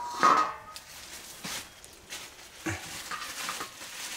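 Thin plastic carrier bag crinkling and rustling in bursts as hands open it and shake cooked pork out onto a steel plate. A brief pitched call sounds near the start, the loudest moment.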